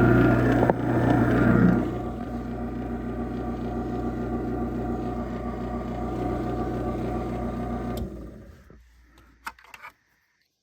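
Craftsman chain-drive garage door opener running on an opening cycle, a steady motor hum with chain rattle, louder for about the first two seconds. The motor stops about eight seconds in, followed by a couple of sharp clicks.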